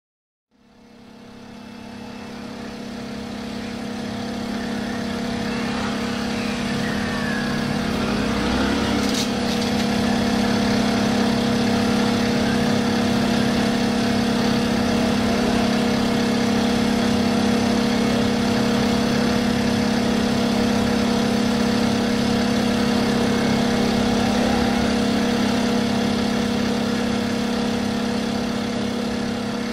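Motorcycle engine running with a steady drone, fading in over the first few seconds, with fainter rising and falling revs about six to nine seconds in.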